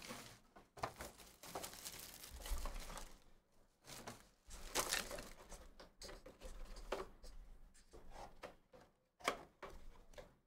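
Foil trading-card pack wrappers crinkling and rustling in hand, in irregular bursts.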